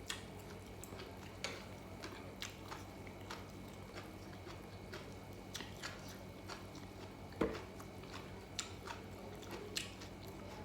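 A person chewing food close to the microphone: scattered wet mouth clicks and smacks, one louder about seven seconds in, over a steady low hum.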